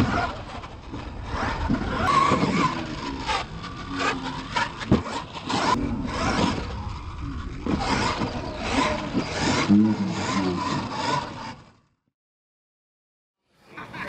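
Radio-controlled monster truck running on a dirt track: its motor revs up and down, its tires scrabble in the dirt, and there are sharp knocks as it lands and tumbles. The sound cuts out for about two seconds near the end.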